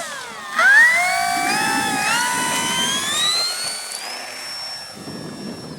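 Electric motor and propeller of an E-flite P-51 Mustang 1.2 m RC plane being throttled up: a whine that dips briefly, climbs steadily in pitch for about three seconds, then holds steady and a little quieter.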